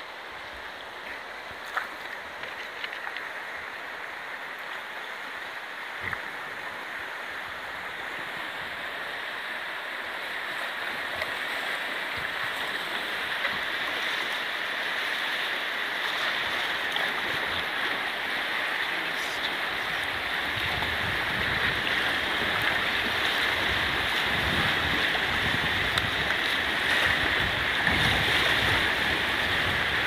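Rushing white water of a fast river heard from a tube raft riding the rapids, a steady roar that grows louder as the raft moves into rougher water. Near the end, gusts of wind buffet the microphone.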